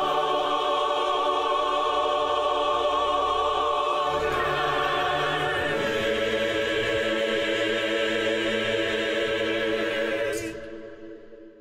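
Mixed-voice virtual choir singing, moving to a long held final chord about four seconds in. The chord is released near the end and dies away in a short fading tail.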